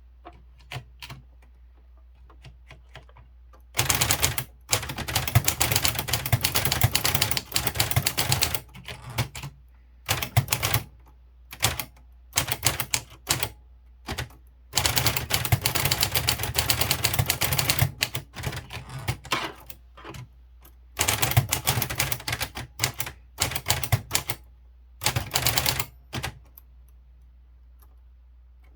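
Kyungbang Clover Topstar 10S manual typewriter being typed on: fast runs of key strikes in several bursts of a few seconds, with short pauses between them. The typing starts about four seconds in and stops a couple of seconds before the end.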